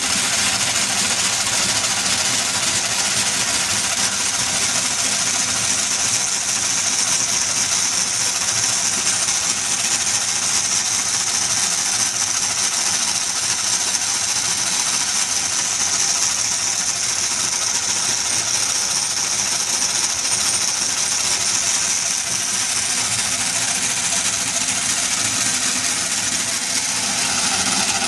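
Merkur metal construction-set model of a single diesel-engine cylinder running: a steady mechanical whir and rattle of its turning metal parts.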